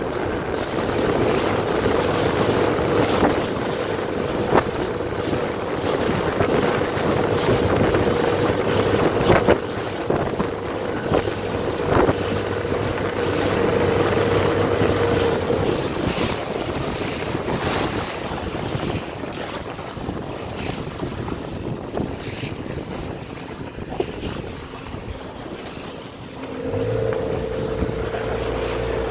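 Wind buffeting the microphone and water rushing past a boat's hull, with frequent gusts and slaps. A steady motor hum runs through the first half, stops, and returns near the end.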